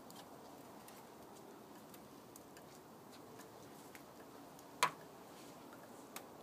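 Quiet background with scattered light ticks and clicks at irregular intervals, and one sharper click about five seconds in.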